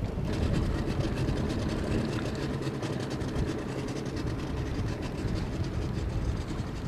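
Mercury outboard motor running steadily with a low rumble.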